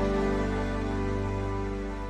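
Background music: a held chord of several steady notes slowly dying away.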